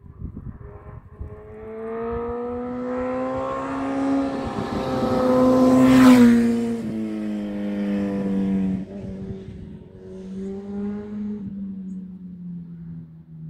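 A motorcycle passing by at speed: its engine note grows louder and higher as it approaches, is loudest as it goes past about six seconds in, then drops in pitch and fades away.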